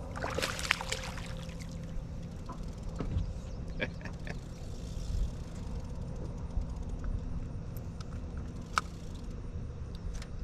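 A steady low hum, with a few short sharp clicks and knocks.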